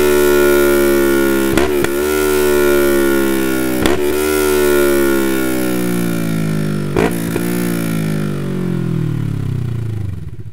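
Kawasaki Versys 650 parallel-twin engine through an Akrapovic Racing Line full exhaust, revs falling slowly and steadily from high toward idle. Three or four short sharp cracks break in along the way.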